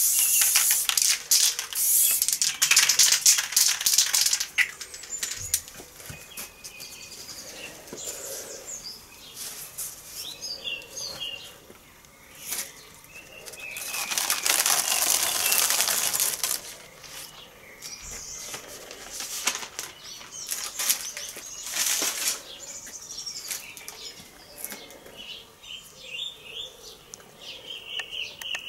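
Aerosol spray-paint can hissing in bursts as black paint is sprayed over a paper stencil: a long burst at the start, another of a couple of seconds midway, and a few short puffs after that. Quieter rustling of paper and handling sounds fill the gaps.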